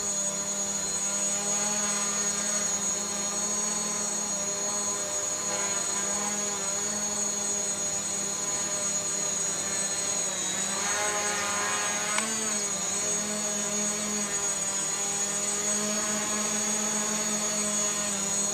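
Gaui 500X quadcopter's four electric motors and propellers buzzing steadily in flight close by. In the middle the pitch dips and climbs again over a couple of seconds as the motors change speed.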